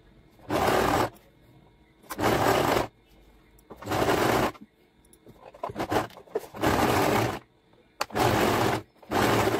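Electric domestic sewing machine stitching in short spurts: six runs of under a second each with brief pauses between, sewing a narrow strip of saree cloth on a long stitch. A few light clicks come in the pause around the middle.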